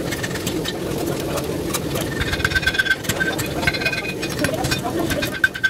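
Steady drone of a running forge, with scattered metal taps, some of which ring briefly, about halfway through and near the end.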